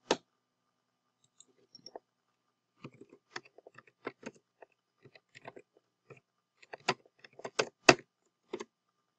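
A single mouse click, then a run of irregular keyboard keystrokes as a file name is typed on a computer keyboard, the loudest keystroke near the end.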